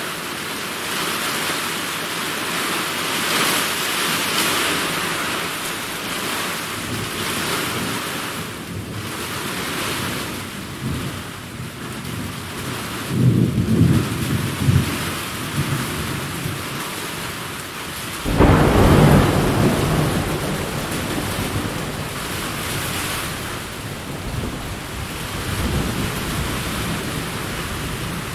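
Steady rain with thunder. A rumble comes about halfway through, then a louder peal breaks out suddenly about two-thirds of the way in and rolls on for a few seconds.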